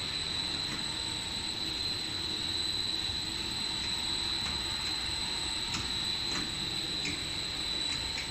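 Steady running noise of a plastic net extrusion line's machinery, with a constant high-pitched whine over it and a few faint clicks.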